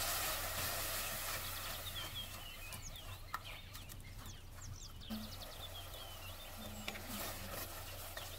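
Onion-tomato masala sizzling in oil in an aluminium pot while a spoon stirs it, with a few sharp scrapes against the pot. Short high chirps come in small groups over the stirring.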